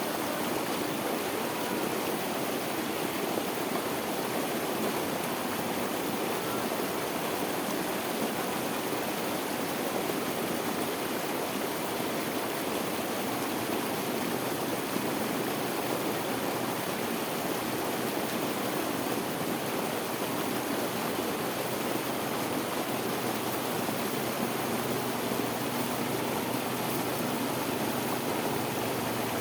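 Steady rush of fast-flowing water pouring over a small waterfall, a constant even roar with no breaks.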